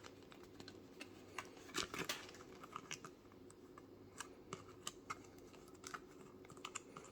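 Faint scattered clicks and light rustling of XLR cables and their packaging being handled as twist ties are taken off, with a cluster of louder clicks about two seconds in.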